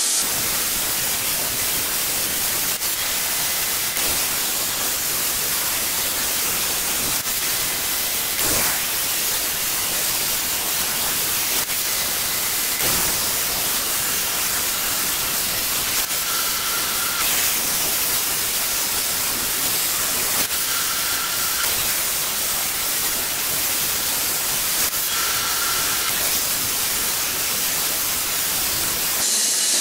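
CNC plasma cutter torch hissing steadily as its arc cuts slots through sheet metal; the hiss cuts off just before the end.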